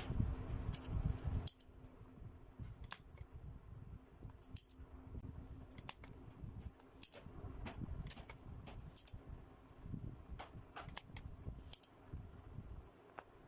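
Hand tools clicking and snipping: a dozen or so sharp, scattered clicks, after a low rumble in the first second and a half. A faint steady hum runs underneath until about ten seconds in.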